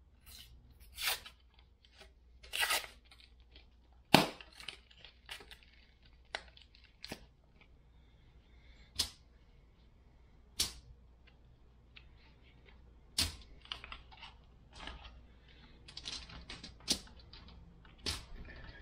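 Paper wrapper torn off a cardboard tube of refrigerated biscuit dough, then a sharp crack about four seconds in as the tube pops open. After it come scattered small crinkles and taps of aluminium foil as the biscuits are pulled apart and set down.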